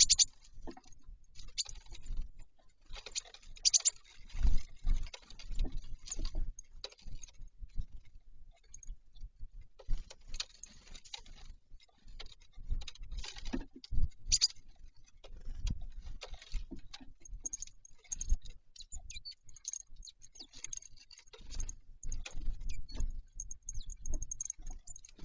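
Birds at a bird feeder: irregular pecking taps, clicks and knocks, with some low thumps, and a run of short high squeaks in the last several seconds.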